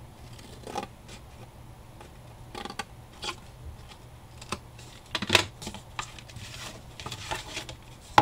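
Scissors snipping through the edge of a brown cardboard sheet in a few separate cuts, with dry rustling of the board between them. A louder knock comes about five seconds in.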